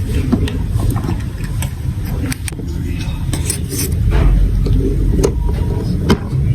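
Marbles rolling along a plastic building-block marble run: a continuous low rolling rumble with scattered sharp clicks as they knock against the track pieces, getting louder about four seconds in.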